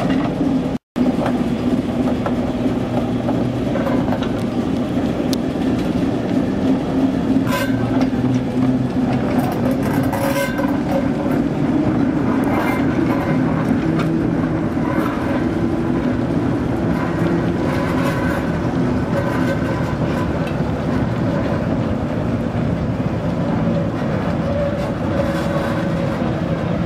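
Class 08 diesel shunter's English Electric six-cylinder engine running steadily as it moves a dead steam locomotive, a continuous low engine hum with a brief gap about a second in.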